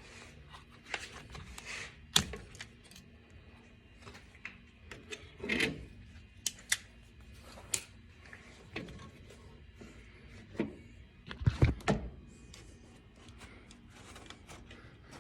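Hand-work noises from fitting a rubber door seal to a truck door: scattered clicks, taps and rustles, with a sharp knock about two seconds in and a cluster of heavier thumps near twelve seconds.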